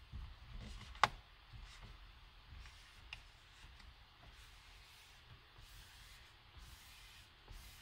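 Faint rubbing of a plastic squeegee card wrapped in a cloth being worked across a wet screen protector on a touchscreen, with one sharp click about a second in.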